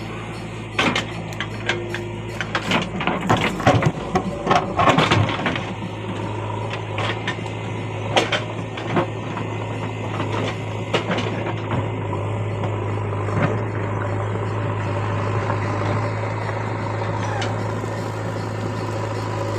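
An engine running steadily with a low hum, overlaid by irregular clicks and knocks that are loudest about three to five seconds in and thin out after about eleven seconds.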